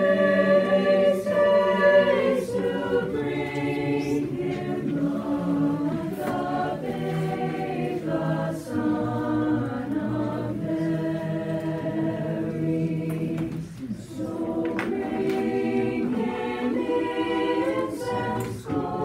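High school chorus singing a cappella, many voices together in harmony, with a short breath between phrases about fourteen seconds in.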